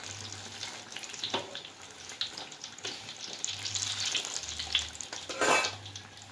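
Breaded risoles deep-frying in hot oil in a wok, sizzling steadily with many small crackles. A wire mesh strainer knocks against the wok as the rolls are lifted out, loudest about five and a half seconds in.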